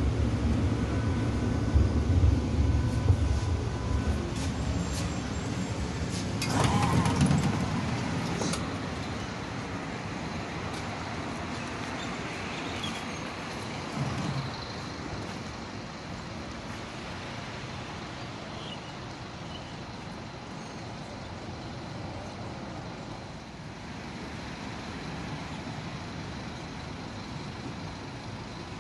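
B2-class tram running along street track, heard from inside the car: loud low running noise with rattling clicks for the first several seconds, then a steadier, quieter rolling noise.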